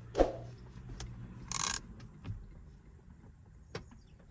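A few scattered clicks and knocks, with one brief rasp about a second and a half in, as a tool tightens the bolt that holds the steering wheel on a Volkswagen Passat B5.5. A low hum runs faintly underneath.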